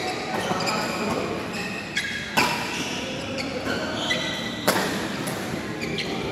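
Badminton rackets striking a shuttlecock in a doubles rally: two loud, sharp cracks about two seconds apart among fainter knocks, with short high squeaks in between.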